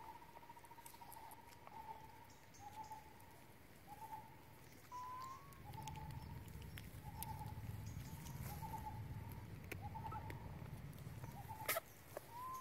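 A bird repeating a short, even-pitched hooting note about once a second, one note sliding slightly upward. Under it is a low rumble from about halfway through, and a sharp click comes near the end.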